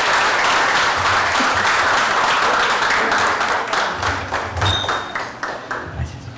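A roomful of people applauding: dense clapping that thins out over the last couple of seconds into a few scattered claps.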